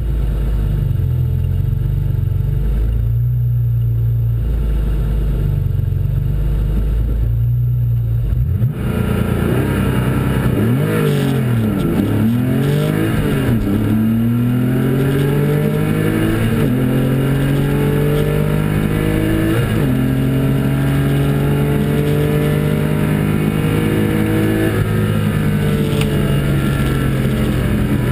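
Porsche 964 Carrera 2's air-cooled 3.6-litre flat-six, heard from inside the cabin. It idles low at the drag-strip start line, then is revved up and down, then launches at full throttle. The pitch climbs steadily and drops at each of three upshifts during the quarter-mile pass.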